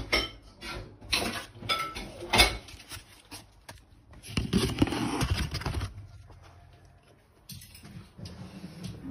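Dish handling on a counter: a paper plate and cake being moved about, giving a run of sharp clicks and knocks in the first three seconds and then about two seconds of scraping and rustling. A faint low hum comes in near the end.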